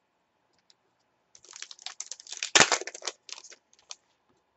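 A trading card pack wrapper being torn open and crinkled by hand: a run of crackling, with one loud rip a little past halfway.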